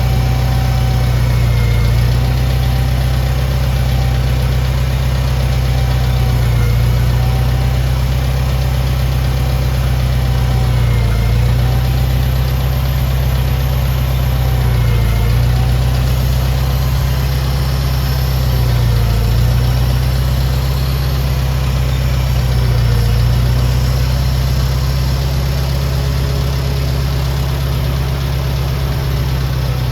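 International 424 utility tractor's engine running steadily at low speed, its pitch dipping briefly about every four seconds.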